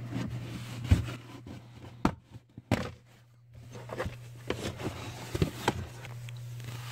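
Handling noise: scattered light clicks and knocks as a hand and handheld camera move about a car's footwell carpet and trim, over a steady low hum.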